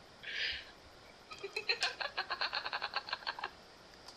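A woman's rapid staccato laugh: a short breathy gasp, then about two seconds of quick, evenly spaced bleat-like pulses, close to nine a second, in a goat-like rattle.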